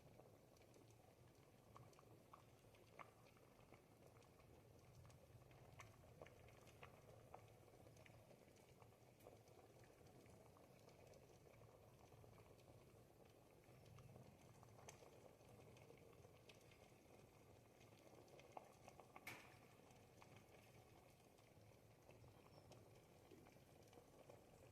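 Thick ribollita soup simmering in a pot, bubbling faintly with scattered small pops and plops; one slightly louder pop comes about two-thirds of the way through.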